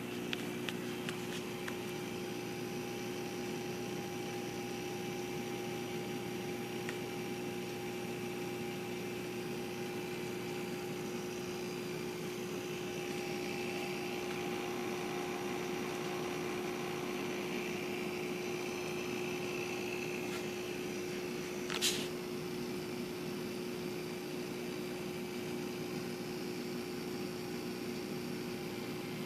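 Steady hum of a reef aquarium's running pumps and circulation equipment, with a single brief sharp click about three-quarters of the way through.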